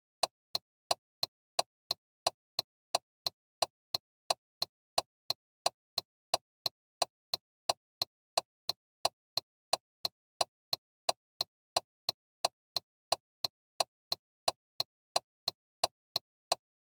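Car turn signal indicator ticking steadily: sharp, evenly spaced clicks at about three a second, the rhythm of the blinker flashing.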